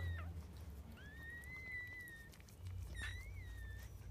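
Newborn puppies crying: two long, high-pitched squealing cries of about a second each, the first beginning about a second in and the second just before three seconds in. The crying is the puppies' hunger.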